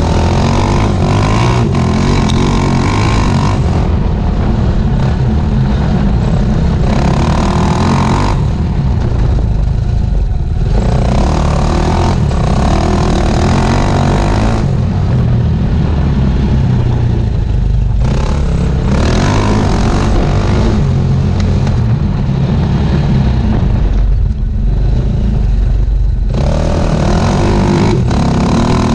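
Enduro motorcycle engine riding a rough trail, the throttle opened and closed again and again, the engine note rising for a few seconds, then easing off, about five times.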